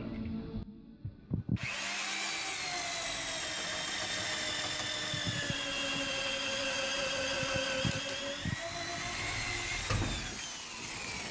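Heavy-duty electric drill boring through a wood framing stud: a few knocks, then the motor starts suddenly and runs steadily for about eight seconds. Its pitch sags a little under load, then it winds down.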